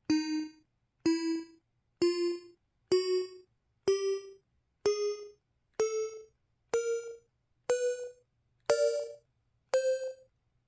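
PT-K2300 mobile phone system tones: eleven short electronic beeps, one about every second, each starting with a click and pitched a little higher than the last.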